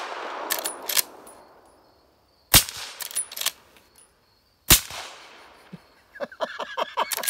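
Suppressed Marlin 1894C short-barreled lever-action rifle in .357 Magnum firing two shots about two seconds apart, with sharp metallic clacks of the lever being worked between shots. A man's laughter starts near the end.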